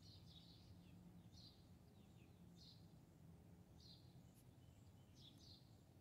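Northern cardinal giving short, down-slurred notes repeated about once a second, faint, over a steady low background rumble.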